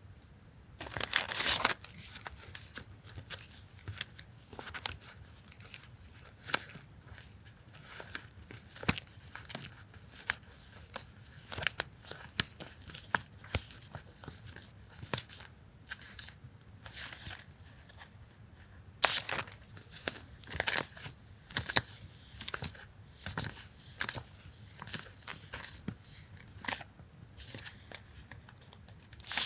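Hands handling paper and plastic stationery packaging: irregular crinkling and rustling with sharp clicks, and louder tearing-like rips about a second in and again about two-thirds through.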